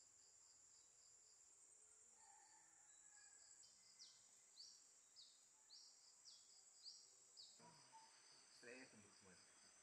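Faint insect chorus: a steady high-pitched buzz with rapid pulsed chirps. In the middle comes a run of about eight falling chirps, roughly two a second.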